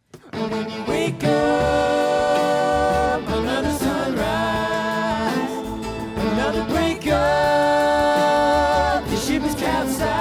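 Live band music kicking back in right after a brief full stop, with two long held chords over a steady beat.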